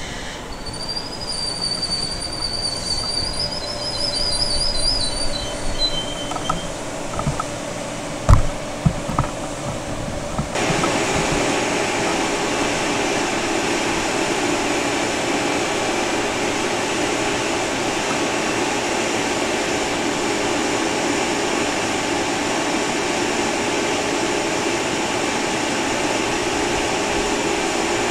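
LIRR M9 electric multiple-unit train at the station: a high, wavering metallic squeal for the first several seconds, a few sharp knocks, then from about ten seconds in a steady, even rushing noise that starts suddenly.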